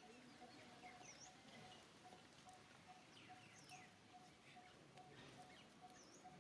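Faint high chirping and whistled animal calls, some sweeping down and up, over a soft note that repeats at an even pace.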